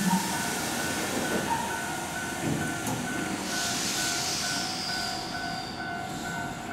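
Keihan electric train in a station, its running noise steady throughout, with a hiss of air starting about three and a half seconds in and fading away, over a faint evenly repeating beep.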